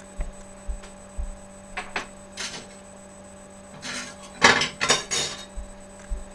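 Dishes and cutlery being handled in a kitchen: scattered clinks and knocks, then a louder run of clatter a little past the middle. A faint steady hum runs underneath.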